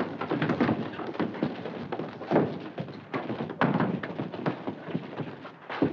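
Scuffle of a fistfight in the dark: irregular heavy thumps and knocks of blows and bodies, about one loud hit a second, with shuffling between.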